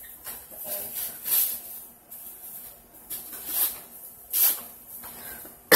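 Saran wrap (plastic cling film) crinkling and rustling in several short bursts as layers are pulled and unwound by hand from a wrapped bundle.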